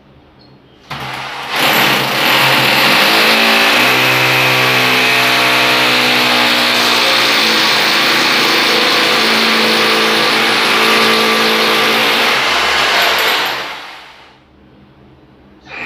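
Electric rotary hammer drill boring a hole into ceramic wall tile. The motor starts about a second in, runs at full speed under load with a shifting pitch, then winds down near the end, with a short burst right at the close.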